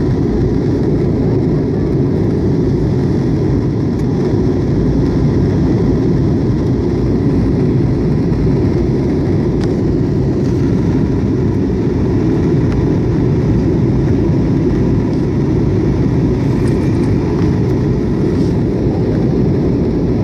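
Jet airliner cabin noise heard from a window seat: a steady low roar of the engines and rushing air, unchanging throughout.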